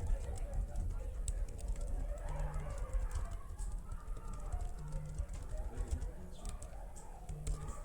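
Quiet room with faint indistinct murmuring and scattered light tapping clicks, while a short low hum sounds three times, about two and a half seconds apart.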